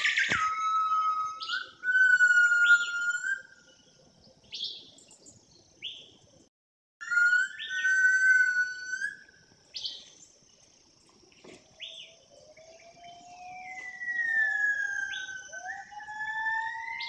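Wild birds calling in the forest canopy: long, held whistles with short chirps between them. From about twelve seconds a long, slowly rising whistle-like tone runs underneath.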